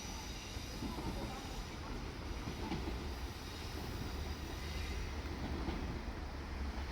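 JR Shikoku Series 1500 diesel railcar running by, a steady low rumble.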